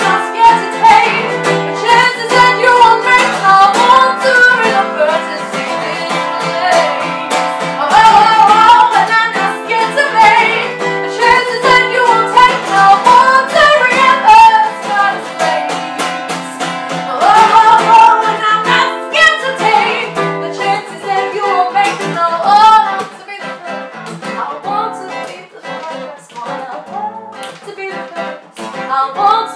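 A woman singing over a strummed acoustic guitar. About three quarters of the way through the music drops to a softer passage.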